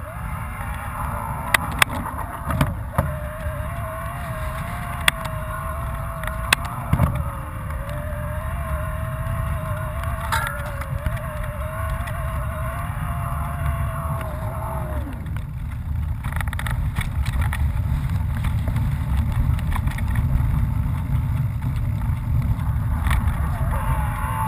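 Mountain bike riding a loose gravel and dirt trail, heard from the bike's own camera: a steady rush of wind on the microphone and tyre noise, with sharp knocks and rattles from the bike over bumps, several in the first ten seconds. A wavering whine runs through the first fifteen seconds, then drops away.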